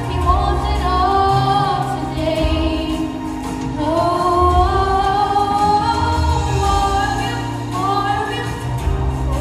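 Gospel song with a female voice singing a sliding, held melody over a backing track with a steady low bass.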